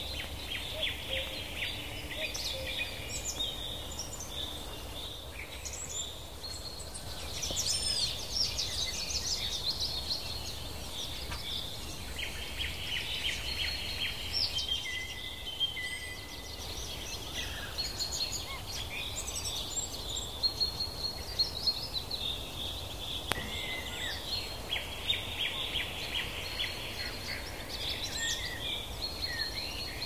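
Many small birds chirping, trilling and calling over one another in a continuous chorus, over a steady low background noise.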